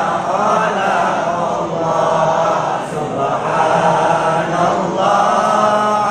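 A group of pilgrims chanting Islamic prayers together in unison: a continuous chorus of voices with short breaks between phrases, about two and three seconds in and again near five seconds.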